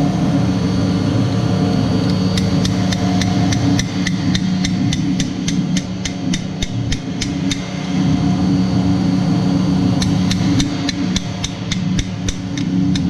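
Rapid light hammer taps on metal, about five a second, in two runs with a short pause between, during reassembly of a chilled water pump. Under them runs a steady mechanical hum.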